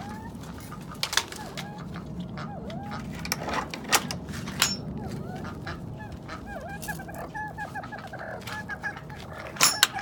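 Aviary pheasants and jungle fowl calling with short, repeated chirping notes that come in quick runs after the middle. Several sharp clicks and knocks sound over them, the loudest near the end.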